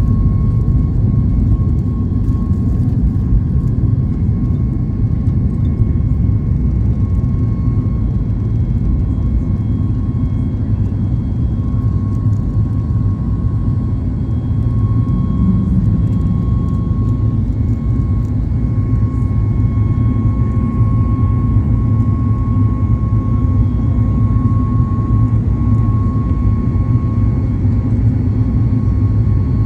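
Steady low rumble of a moving vehicle, road and engine noise, with a faint steady whine over it.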